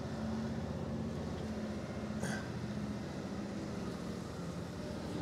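Scania R520 timber truck's V8 diesel engine running steadily with a low, even hum as the loaded truck drives slowly. A brief faint rustle or click about two seconds in.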